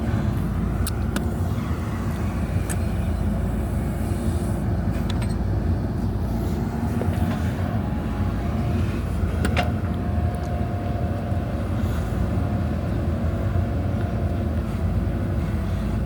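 JCB backhoe loader's diesel engine running steadily, with a few sharp knocks, the loudest about ten seconds in, and a faint whine for a couple of seconds after it.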